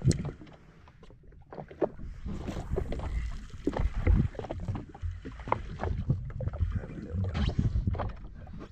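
Small waves slapping and knocking irregularly against the hull of a drifting jetski, over a low rumble, with one sharp knock right at the start.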